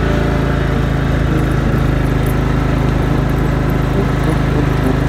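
Gasoline lawn mower engine running steadily at an even speed.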